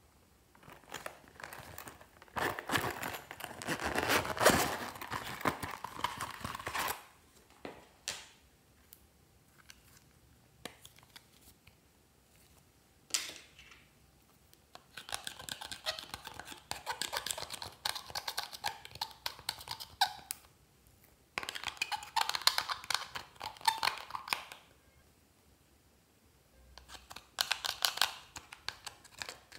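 A metal spatula scraping and crumbling pressed glitter eyeshadow out of a makeup palette, heard as dense crackling in several bursts of a few seconds each, with short pauses between and a single sharp click in the middle.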